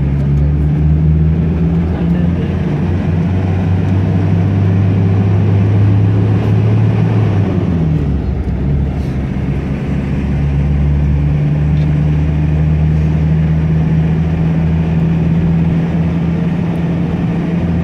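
A car driving through a road tunnel, heard from inside the cabin: a steady engine drone with tyre and road noise. The engine note shifts about halfway through and then holds steady again.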